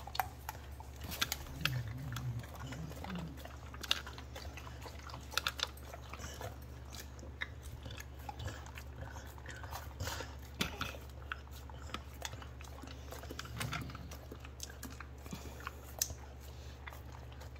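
A beagle licking and lapping chicken mush from a handheld metal scoop: irregular wet smacks and short clicks of tongue and teeth against the scoop, over a steady low hum.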